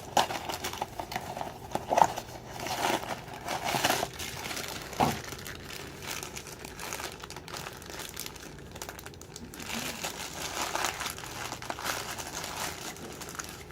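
A Funko Mystery Minis blind bag crinkling and rustling as it is torn open and handled to get at the figure inside. There is a single sharp click about five seconds in.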